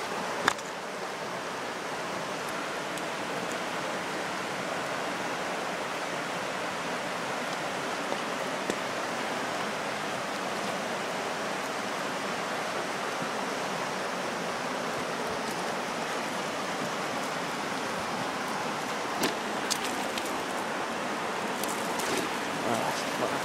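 Creek water rushing steadily over a shallow riffle, a continuous even hiss, with a few faint clicks near the end.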